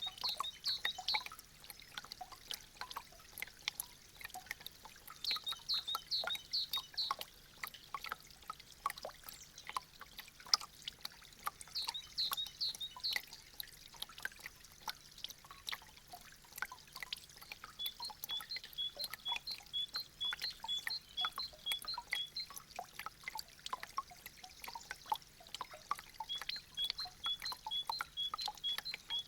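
Meltwater dripping from icicles in quick, irregular drops, with a light trickle. Several runs of short, evenly spaced high chirps sound over it.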